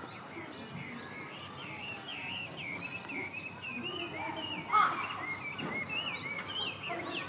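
Small birds chirping and twittering: a quick run of short, wavering high notes, with one louder short sound about two-thirds of the way through.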